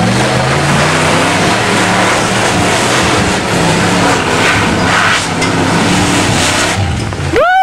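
Rock-crawler buggy's engine revving hard as it climbs a loose dirt and rock slope, its tyres spinning and spraying dirt and stones. Near the end a person gives a high shout that rises and then falls.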